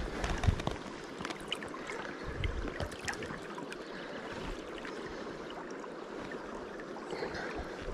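Shallow river current running steadily, with small splashes and sloshing as a caught rainbow trout is held in the flow by hand to be revived. A few soft bumps and splashes fall in the first three seconds.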